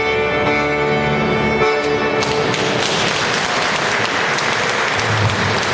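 Polish highlander (góral) folk band of violin, accordion and double bass holding the final chord of a carol, which stops about two seconds in. The audience then breaks into applause.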